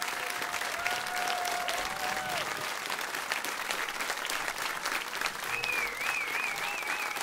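Audience applauding steadily after a song, with a few held calls early on and a high warbling whistle-like tone near the end.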